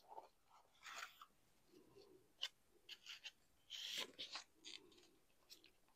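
Faint rustling and crinkling of small, old paper letters and envelopes handled by gloved fingers, in short scattered bursts, the loudest about four seconds in.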